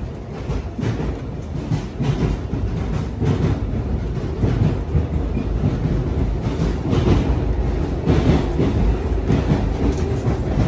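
Passenger train carriage running on the rails, heard from inside the corridor: a steady low rumble with frequent clacks and knocks from the wheels over the track.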